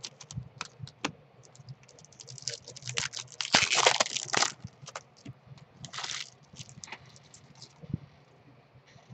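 Plastic wrapper of an opened Topps baseball card pack being crinkled and crumpled by hand, in short crackling bursts with sharp clicks. The longest burst comes about three and a half to four and a half seconds in and another about six seconds in; after that there are only a few faint clicks.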